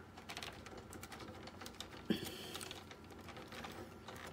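Faint clicking and rattling of hard plastic as fingers work at a catch on an Epson SureColor P600's front panel to free the switch's wire connector, with one louder click about two seconds in.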